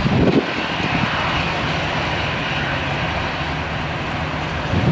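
Airbus A320-232 jet engines (IAE V2500 turbofans) running steadily as the airliner lands and rolls out on the runway. Short gusts of wind buffet the microphone at the start and near the end.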